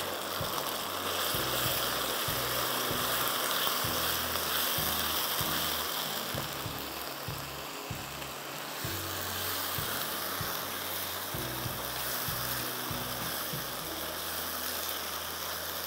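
Onion, ginger-garlic paste and freshly added chopped tomato sizzling steadily in hot oil in a wok, with the scrape and tap of a spatula stirring it now and then.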